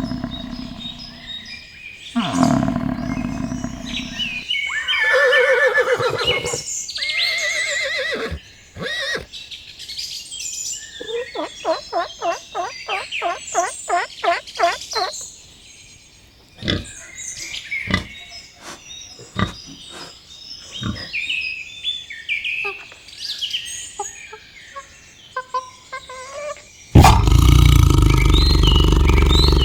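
A string of different animal calls, one after another: pitched calls at the start, a quick run of about fourteen repeated calls in the middle, scattered short chirps, and a loud, deep call that begins shortly before the end.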